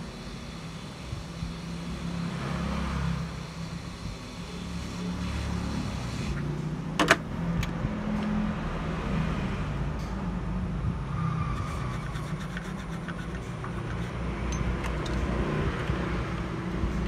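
Road traffic running, mostly a low rumble of passing engines, with one short sharp sound about seven seconds in.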